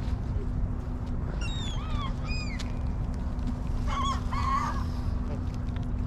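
A few short, falling bird calls about a second and a half in, then a longer wavering call around four seconds, from a mixed flock of gulls and Canada geese. A steady low rumble of city background runs under them.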